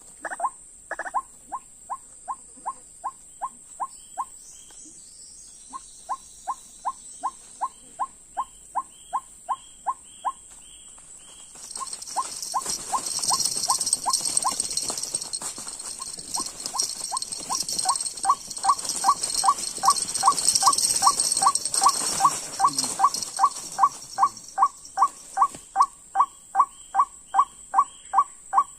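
White-breasted waterhen calling: a long series of short, evenly repeated 'ruak' notes, about three a second, with a couple of brief pauses. A steady high whine runs underneath, and a rushing noise rises from about 12 to 24 seconds in.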